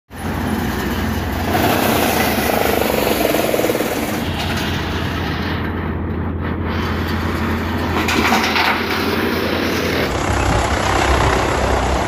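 Tractor-driven wood chipper running under load as a thick log is fed into it: a steady, dense mechanical noise over the tractor engine's low hum. The sound changes about ten seconds in.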